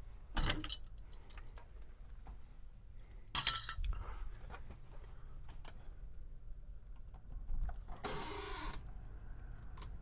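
Cordless drill-driver backing screws out of a door lock's back plate in three short bursts, the last and longest near the end.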